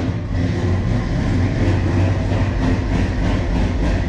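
A vehicle engine running steadily with a low rumble.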